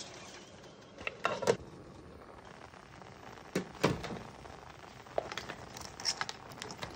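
A metal steamer basket of Dungeness crab pieces being handled in its pot: its handle and rim clink and crab shells knock. The noise comes as separate clatters, a cluster about a second in and another near four seconds, then lighter clicks.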